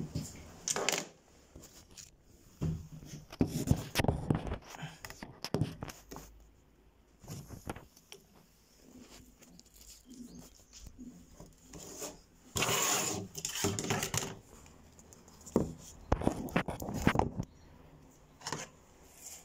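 Irregular handling noise from the phone that is recording, gripped and moved by hand: scattered knocks, rustles and scrapes on the microphone, with a longer rustling burst about two-thirds through.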